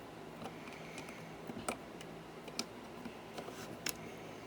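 Plastic LEGO bricks clicking and clacking as they are handled and pressed together, in a loose series of sharp, uneven taps.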